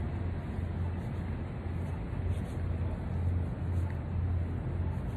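Steady low hum and hiss of city street noise, with no distinct events.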